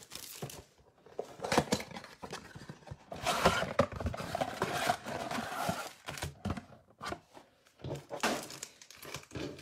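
Cardboard Topps Chrome mega box being opened by hand and its foil card packs pulled out and set down: irregular rustling, crinkling and scraping, with a longer stretch of tearing and rustling in the middle.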